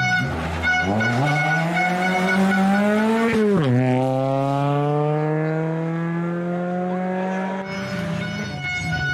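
Citroën DS3 rally car's engine revving hard as it accelerates out of a bend, the revs falling sharply about three and a half seconds in as it shifts up, then climbing slowly again as it pulls away until it drops out near the end.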